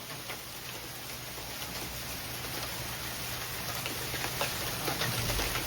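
Heavy rain falling steadily, a hiss with scattered faint ticks of drops striking a surface, growing slightly louder.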